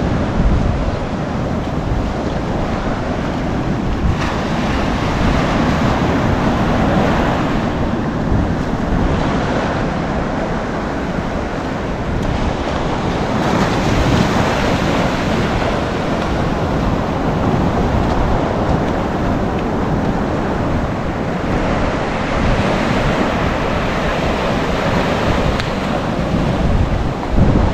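Ocean surf breaking and washing on the shore, swelling and easing every several seconds, with wind buffeting the microphone.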